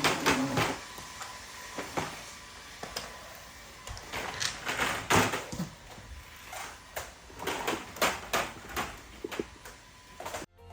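Irregular clicks and knocks of hard objects being handled, a dozen or more, ending abruptly just before the end.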